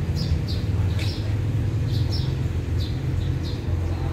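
Small birds chirping in short repeated notes, a few a second, over a steady low rumble.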